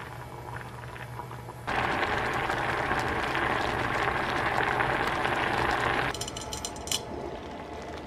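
Soaked rice in water bubbling at the boil in a stainless steel saucepan as it cooks into white rice porridge. The hiss of the boil grows loud about two seconds in and drops back near six seconds, over a steady low hum.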